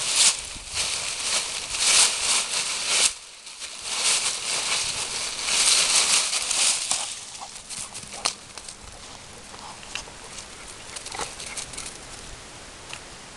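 Dry fallen leaves crunching and rustling in loud spurts as two dogs scuffle and run through them, with a short pause about three seconds in. After about seven seconds it drops to a few faint rustles and clicks.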